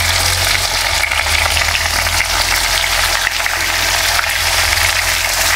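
Stuffed bitter gourds (karela) frying in hot oil with cumin seeds in a tawa: a steady sizzling hiss flecked with small crackles, over a low steady rumble.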